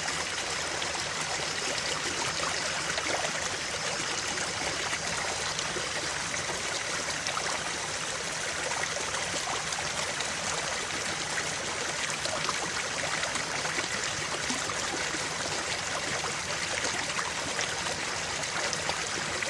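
Creek water flowing and trickling over rocks: a steady rushing and babbling with no breaks.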